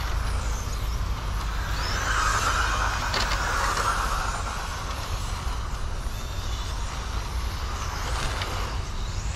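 Radio-controlled cars running laps on an asphalt track: faint high whines rising and falling as they speed up and slow, with a louder hiss of a pass about two seconds in, over a steady low rumble.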